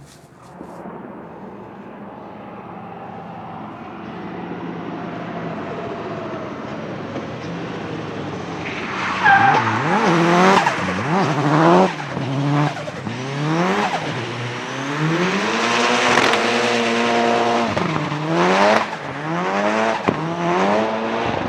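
Nissan 200SX S13 drift car coming closer, faint at first and growing steadily louder; from about nine seconds in, its turbocharged engine revs up and down again and again as it drifts, with tyres squealing.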